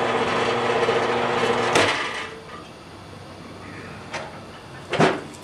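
Horizontal metal-cutting band saw running through a solid hot-rolled steel bar, then shutting off about two seconds in as the arm trips its automatic cut-off switch, and the blade runs down. A sharp knock follows near the end.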